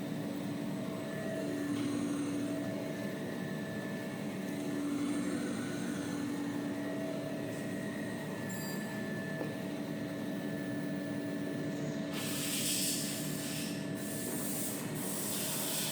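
Automatic paper towel roll cutting machine running with a steady mechanical hum of several held tones, and three bursts of hiss about twelve seconds in.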